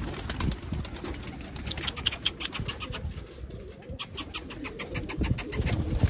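A flock of domestic high-flying pigeons in a loft: quick runs of wing flaps as birds take off and land, with low cooing.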